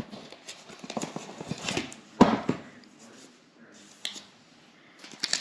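Hands handling packaging and accessories: scattered rustles and small clicks, with one louder knock about two seconds in, then quieter handling.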